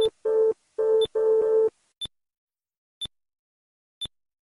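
Synthesized electronic beeps from a nuclear-test time-lapse map. A short high blip sounds once a second, ticking off each month. Four buzzy mid-pitched tones come in quick succession in the first second and a half, each marking a US nuclear test.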